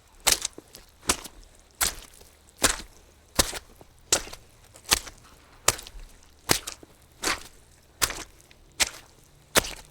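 Soggy footsteps at a steady walking pace, about thirteen even steps, one every three-quarters of a second, each a short wet, crisp impact.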